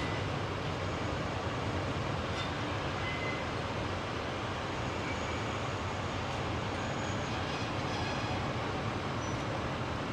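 Mainline diesel locomotive's engine running steadily as the locomotive moves slowly over pointwork.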